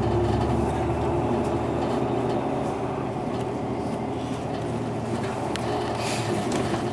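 Hino Blue Ribbon II city bus (PDG-KV234L2) heard from inside the cabin, its diesel engine running steadily over road and tyre noise. The deepest rumble eases about a second in, and a short hiss comes about six seconds in.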